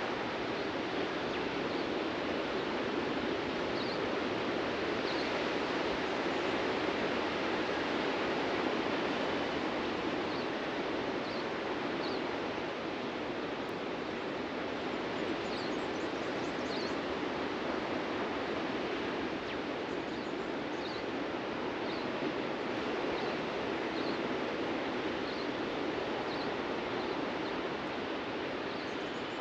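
Steady wash of ocean surf breaking on a beach, with a bird's short, high chirps repeated about once a second.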